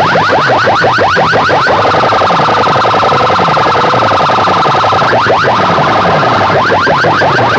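Electronic siren-like tone blasted at full volume through clusters of aluminium horn loudspeakers. It chirps in quick rising sweeps, about seven a second, changes to a steady held tone about two seconds in, and returns to fast sweeps about five seconds in.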